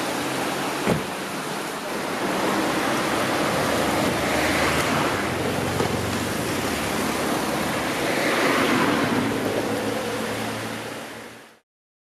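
Car driving along a road: steady tyre and road noise over a low engine hum, with a single knock about a second in and two swells in the noise. It fades out and cuts to silence near the end.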